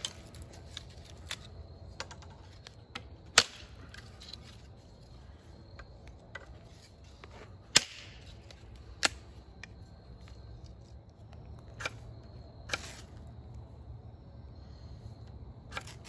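Dry, cracked bamboo being snapped and split apart by hand into kindling pieces: a handful of sharp cracks several seconds apart, the loudest three in the first half, with smaller clicks and rustling between.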